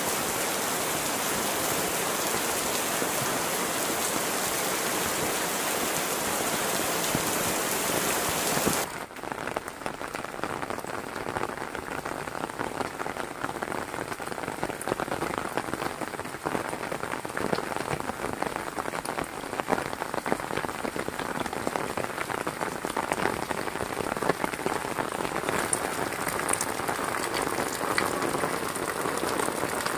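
Heavy rain falling. About nine seconds in, the even, dense hiss changes abruptly to a less hissy, uneven patter of separate drops.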